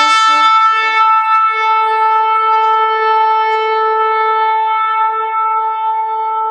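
Shofar sounding one long, steady held blast.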